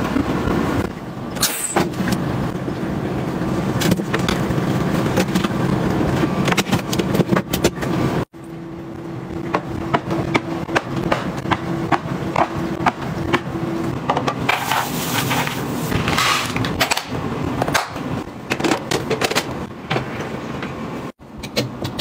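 Household objects being handled and set down: a series of clicks, knocks and rustling over a steady background hum, breaking off abruptly twice.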